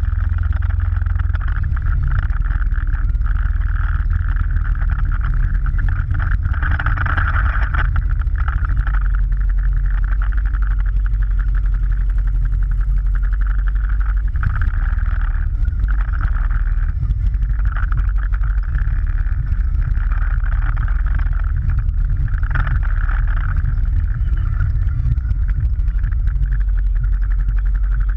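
Motorcycle ride heard from a camera mounted on the bike: a steady, loud rumble of the engine and road wind, with no sudden events.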